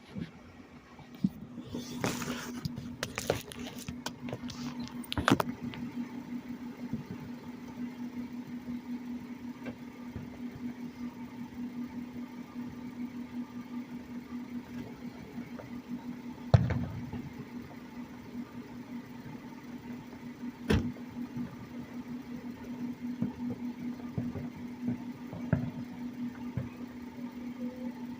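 Scattered distant celebratory bangs from gunfire and fireworks: a quick run of pops a couple of seconds in, then single sharp bangs about 16, 21 and 25 seconds in, the one at 16 seconds the loudest with a rumbling tail. A steady low hum runs underneath.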